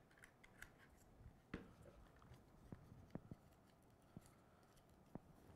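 Near silence broken by a few faint clicks and light knocks as USB cables and a small camera are handled and plugged in on a table; the sharpest click comes about a second and a half in.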